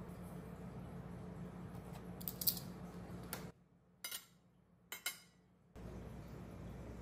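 Metal cutlery clinking on ceramic plates: a cluster of light clicks and clacks, then two bright, ringing clinks about a second apart as forks are set down on a plate. A low steady hum runs underneath.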